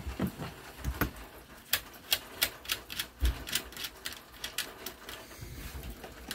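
Irregular sharp clicks and light taps, several a second, from hands working an 8 mm nut off a tail-light mounting stud.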